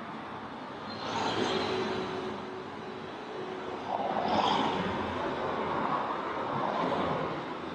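City street traffic: the noise of passing vehicles swells twice, about a second in and again around four seconds, over a steady background hum.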